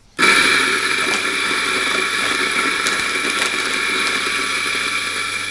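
MiiCoffee DF54 54 mm flat-burr espresso grinder with its 150 W motor switching on just after the start and grinding a 16 g single dose of coffee beans: a steady motor whine over the grainy sound of beans going through the burrs.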